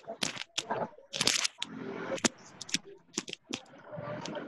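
Irregular sharp clicks and crackles, well over a dozen in a few seconds, with faint voices between them, as heard through a video-call audio feed.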